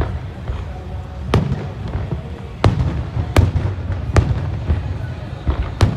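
Aerial fireworks shells bursting: about five sharp bangs spread across the few seconds, over a steady low rumble.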